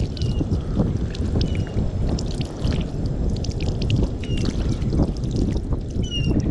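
Steady wash of ocean water, with scattered clicks and a few short high chirps.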